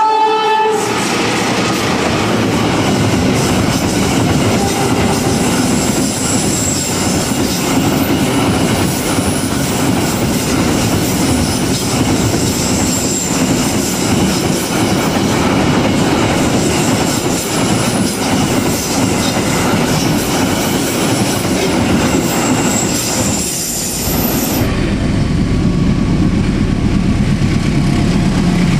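A diesel locomotive's horn cuts off just at the start. A long container freight train then passes close by, its wheels clattering on the rails with high-pitched squeals coming and going. About 24 seconds in, this gives way to the low rumble of another diesel locomotive approaching.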